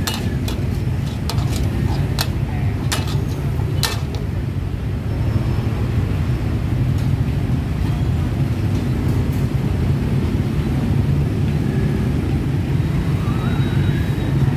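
Gas wok burner running with a steady low rumble. A metal spatula clanks and scrapes against the steel wok several times during the first four seconds.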